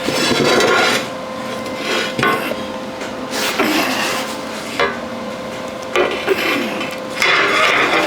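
Steel clanking and scraping as the welded steel sculpture piece is handled and flipped over on the work surface: several separate knocks and scrapes of varying length.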